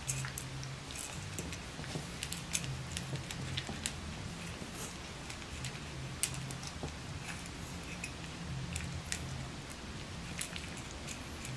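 Boston Terrier puppies crunching dry kibble and pushing it around a metal pan: an irregular scatter of small, sharp clicks and crunches, over a low hum that comes and goes.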